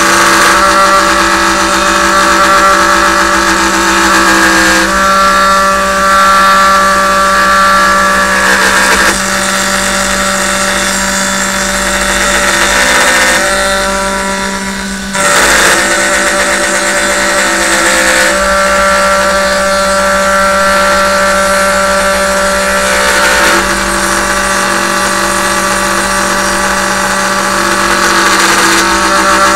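Hobby CNC router milling a wooden board: the spindle runs with a steady tone while the stepper-driven axes add higher tones that change every few seconds as each cutting move begins and ends. There is a brief dip in level about 15 seconds in.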